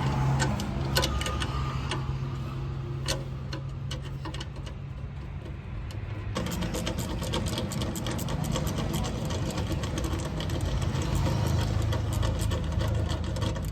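Scattered sharp metallic clicks and taps of a hand wrench working the two 10 mm bolts of a NOx sensor, over a steady low hum. About six seconds in the background changes abruptly.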